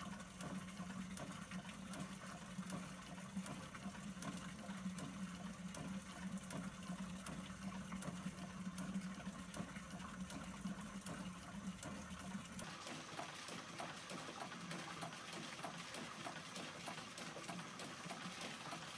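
Water from a 6-inch Rider hot air pumping engine pouring in a steady stream out of its standpipe into a galvanized bucket, with the engine's regular clicking running under the splashing. A low steady hum drops out about two-thirds of the way through, after which the ticks of the engine, running at full speed of about 95-100 rpm, come through more plainly.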